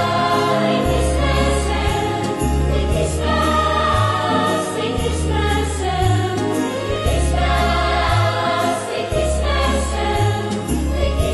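Christmas music with a choir singing over a bass line of held notes that change about once a second.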